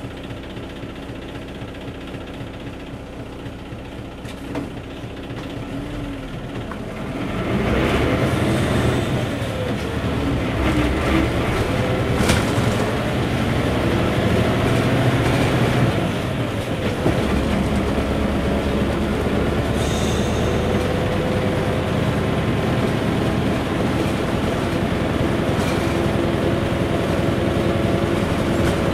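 V8 diesel engine of an Isuzu KC-LV380L route bus heard from on board. It runs low at first, then from about seven seconds in pulls harder with its pitch climbing, dips around sixteen seconds as it changes gear, and carries on steadily under load.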